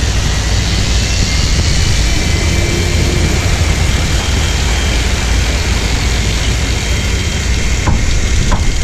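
Steady, loud mix of a sportfishing boat's engines running, water churning behind the stern, and wind buffeting the microphone.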